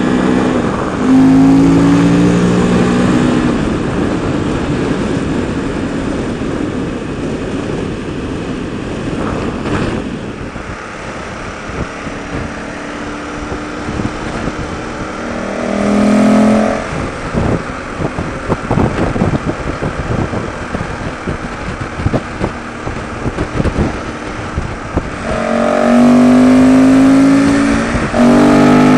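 KTM 1290 Super Adventure's V-twin engine at highway speed, its intake noise louder through a Rottweiler Performance aftermarket intake. It pulls louder under throttle three times: about a second in, midway, and near the end. Wind buffets the microphone in between.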